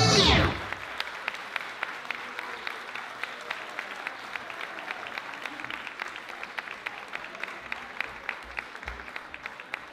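Audience applauding, many separate handclaps that thin out and fade toward the end. It opens with a brief loud sound falling in pitch as the music stops.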